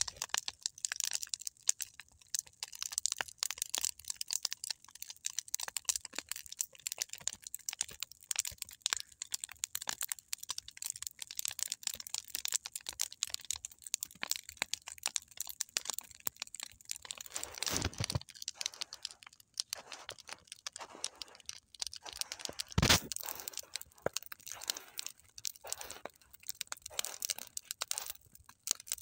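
Wood campfire crackling, a steady stream of small snaps and pops. Two louder pops stand out, about 18 and 23 seconds in.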